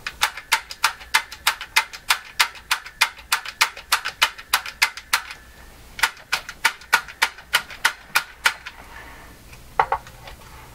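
Push-button selector switches on a Fisher System 8700 receiver clicked in and out rapidly, about four clicks a second, with a short break about five seconds in. The switches are being worked to spread freshly sprayed WD-40 through dirty, noisy contacts.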